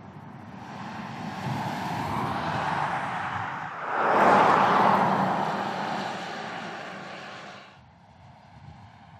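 Audi e-tron Sportback electric SUV driving past, its tyre and road noise rising to its loudest as it passes about four seconds in, then fading. The sound cuts off sharply near the end.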